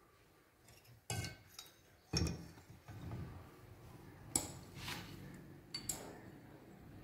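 Glass clinking a few times as a glass pipette knocks against a glass bottle of reaction mixture while a sample is drawn up, with faint handling noise between the clinks.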